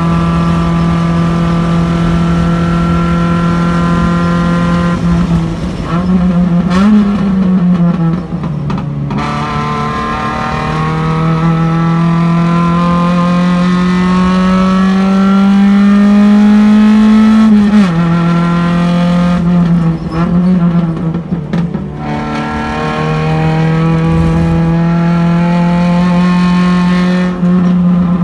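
Race car engine heard from inside the car at speed. The note drops and wavers as the car slows for a corner, then climbs steadily for several seconds under acceleration until a gear change cuts it back down. It wavers again briefly, then settles into a steady note.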